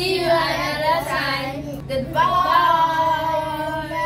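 A small group of children singing together without accompaniment, in drawn-out held notes; the last note is held for nearly two seconds.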